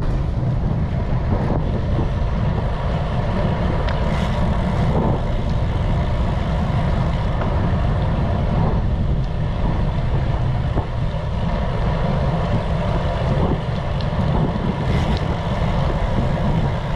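Wind buffeting the microphone of a GoPro on a moving bicycle: a steady low rumble, with road and traffic noise behind it.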